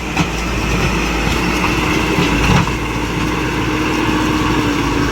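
Tractor engine running steadily at road work, with a few sharp knocks over it, the loudest about two and a half seconds in.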